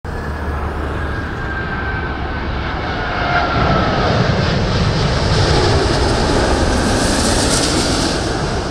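Airbus A380 on final approach with gear down, passing low overhead: the steady rush of its four jet engines swells to a peak about five to seven seconds in. Whining tones glide down in pitch as it goes by.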